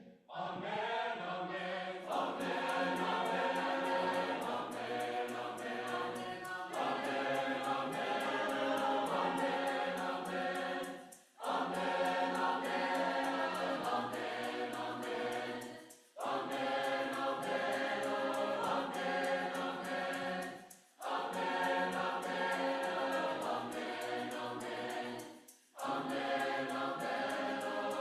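A choir singing a South African choral song in several-part harmony, with a shaker keeping a steady beat. The singing comes in phrases of about five seconds, broken by brief pauses for breath.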